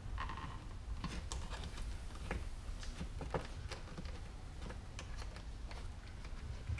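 Irregular light clicks and taps of hands handling a plastic old-work electrical box and 12-2 Romex cable, over a low steady rumble.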